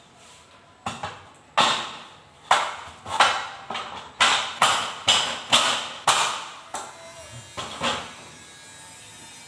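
A run of about fifteen sharp knocks or bangs at an uneven pace, each with a short ringing decay, starting about a second in and thinning out near the end.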